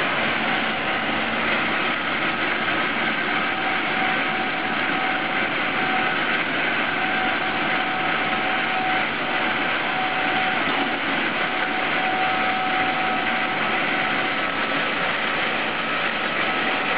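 Animal feed grinder running steadily while grinding corn into a sack, a constant loud mechanical noise with a faint steady whine above it.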